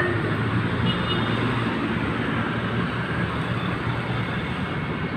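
Steady road traffic noise from vehicles passing on a busy city street, a low engine hum under tyre noise.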